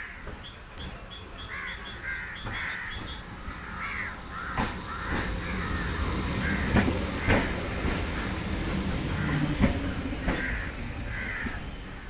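Passenger train arriving at a station platform: a low rumble that grows louder, with a few sharp clanks, and a high steady squeal that begins about two-thirds of the way through. Crows caw repeatedly throughout.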